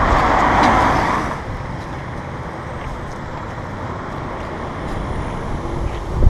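Road traffic noise with a car going through the junction, loudest for about the first second, then dropping to a quieter steady background hiss.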